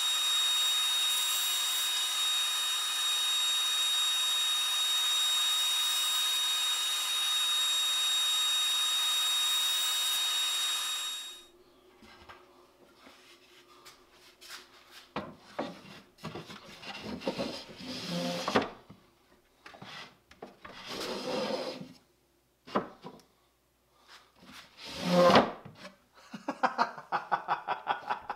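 A table saw runs steadily with a thin whine for about eleven seconds, then cuts off abruptly. After that come several short bouts of wood rubbing and knocking as thin pine drawers are slid in and out of the wooden chest's openings to test their fit after trimming, with a quick rattling run near the end.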